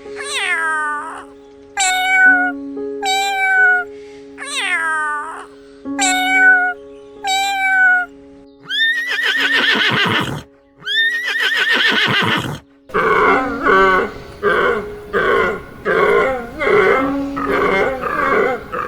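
A series of short animal calls, each sliding down in pitch, over background music with held notes. They are followed by two longer, rougher calls, then a busy rhythmic stretch of music.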